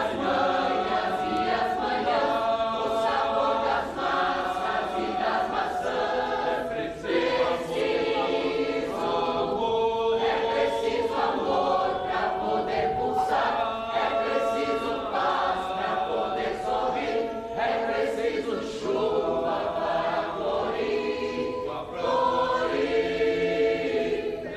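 A choir singing, with many voices on held notes, and no speech over it.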